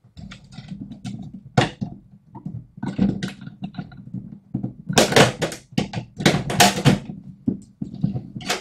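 Plastic case of a Tektronix TDS 210 oscilloscope being worked apart by hand: irregular clicks and knocks as its snap clips let go, coming thickest a little past halfway.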